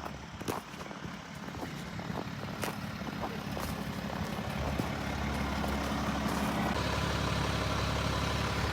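Truck engine idling with a steady low hum that grows louder through the middle and steps up again near the end, after a few light clicks at the start.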